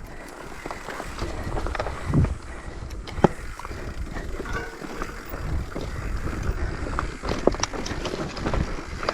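Mountain bike being ridden over a rough dirt trail: tyres crunching and the bike rattling, with scattered clicks and knocks over a steady low rumble.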